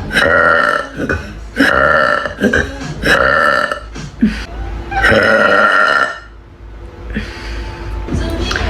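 A young woman burping loudly, about four long, pitched burps in quick succession, then a softer stretch and another loud burp near the end.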